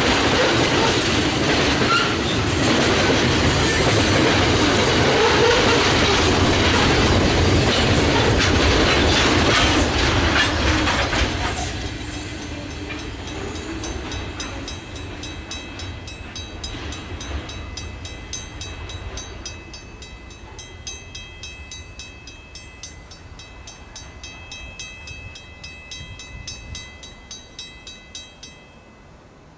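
Freight train of flat wagons rolling past with clickety-clack of wheels. After the last wagon clears, about twelve seconds in, the Safetran mechanical track-warning bell goes on ringing in rapid strokes, fading, and stops shortly before the end.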